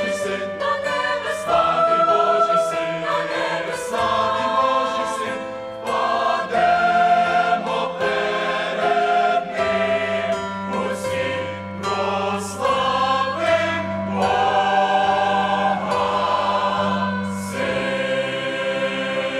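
Mixed youth choir of men and women singing a hymn in Ukrainian, several voice parts together, holding a long chord near the end.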